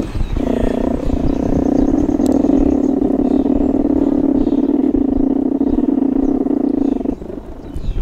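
Loud, steady growling from inside a Langstroth honeybee hive, a rough low drone that starts about half a second in and cuts off suddenly near the end. Its cause is unknown: a rare, unexplained hive sound.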